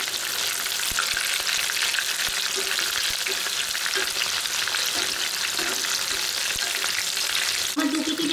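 Battered chicken pieces deep-frying in hot oil in a kadai, a steady crackling sizzle over low-to-medium heat.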